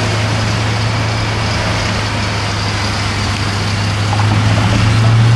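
Motor vehicle running down the road: a steady low engine drone with road noise that rises slightly in pitch and gets louder near the end.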